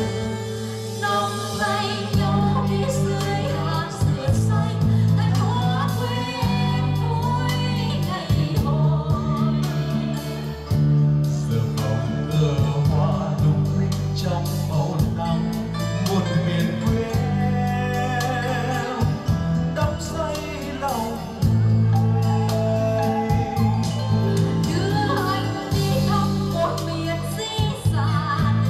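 A man and a woman singing a Vietnamese song as a duet into microphones, with instrumental accompaniment and a steady bass line.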